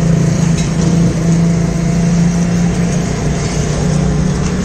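A motor vehicle's engine running steadily amid street traffic, a constant low hum.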